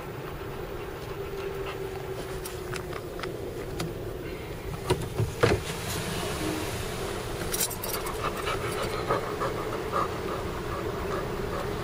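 Steady low rumble of a vehicle's engine heard inside the cab, with a few sharp knocks about five seconds in. From about eight seconds on, a dog pants quickly.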